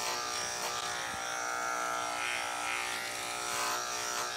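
Electric dog grooming clipper running with a steady hum as it clips a dog's coat.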